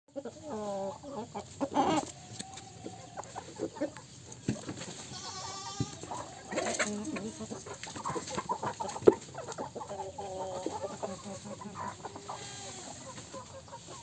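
A flock of chickens clucking and calling over one another as they feed, with scattered short taps and clicks. One sharp click about nine seconds in is the loudest sound.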